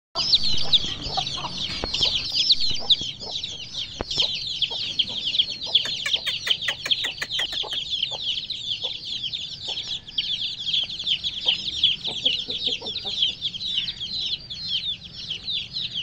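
A flock of month-old Aseel chicks peeping without pause, many overlapping short, high, falling chirps. A run of light clicks comes about six seconds in.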